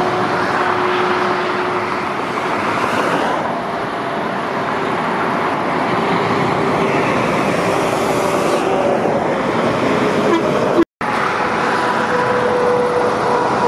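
Heavy lorries passing at speed on a motorway, a steady mix of tyre and diesel engine noise with a few faint droning tones. The sound drops out for a split second about eleven seconds in.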